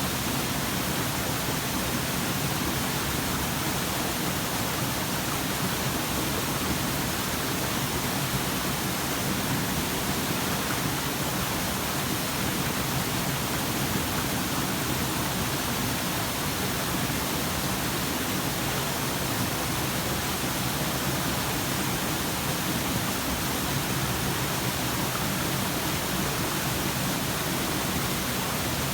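Waterfall: water pouring over rock in a steady, unbroken rush that holds at one level throughout.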